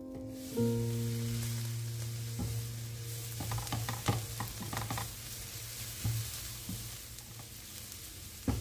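Grated carrot, onion and green pepper sizzling in a frying pan while a spatula stirs them, with a run of quick scrapes and taps of the spatula against the pan from about two and a half to five seconds in.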